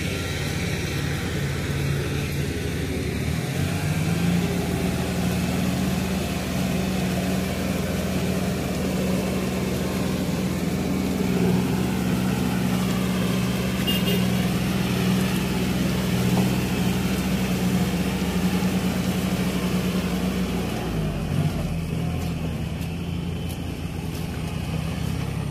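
Kubota tractor's diesel engine running steadily under load while it pulls a rotary tiller through a wet rice paddy. The engine note rises about four seconds in, holds steady, then drops back a little near the end.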